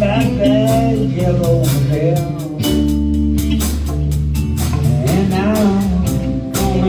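A live band playing a blues-rock song: electric guitar, a bass line and a drum kit keeping a steady beat on the cymbals, with a man singing into a microphone.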